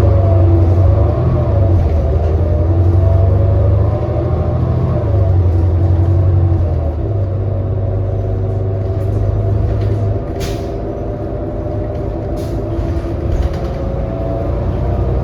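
Inside a 2018 New Flyer XD40 diesel city bus under way: a loud low engine drone with whining drivetrain tones that shift in pitch, easing off after about ten seconds, with a short hiss of air near that point. The uploader counts this bus among those that sound oddly messed up.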